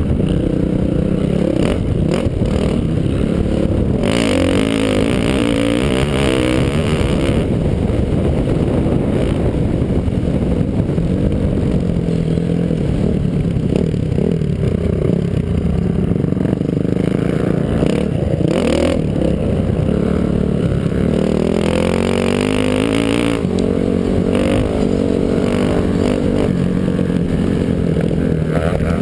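Dirt bike engine at race pace, close to a helmet-mounted camera, revving up and falling back again and again as the rider works through the gears and turns. Stretches of rushing wind noise on the microphone come and go.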